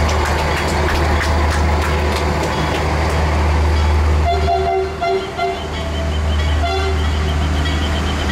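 Diesel passenger train's horn giving a few short toots about four seconds in and one more near seven seconds, over a steady low engine rumble.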